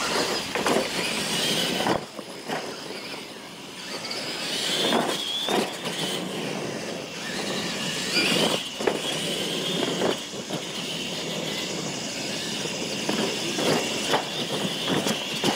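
Radio-controlled monster trucks racing, their electric motors and gears whining high, rising and falling with the throttle. Several knocks come as the trucks hit and land off the ramps.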